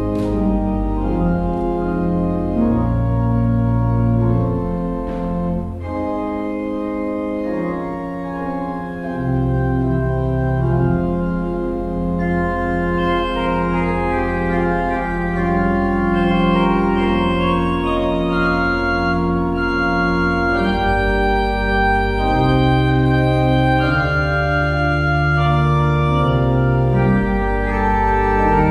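Church organ playing a slow prelude: sustained chords over deep pedal bass notes, with the harmony changing every second or two.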